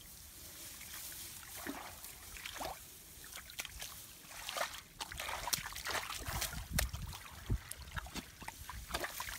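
Wet sloshing and small splashes in shallow muddy water, with irregular knocks, slaps and scrapes from digging through mud by hand and with a hoe.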